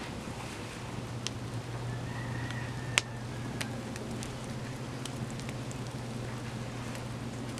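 Cardboard box burning in a metal fire pit: a steady hiss of the flames with scattered sharp crackling pops, the loudest about three seconds in. A low steady hum runs underneath.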